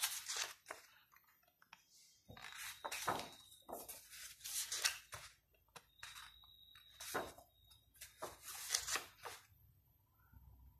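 Pages of a large, thick photo book being turned by hand: stiff paper rustling and sliding in several separate bursts.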